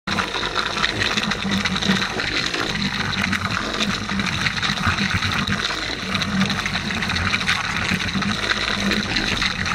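Handheld electric polisher with a foam pad buffing clearcoat on a motorcycle fairing, the audio sped up tenfold so the motor and pad sound like a steady high whine over a rushing hiss.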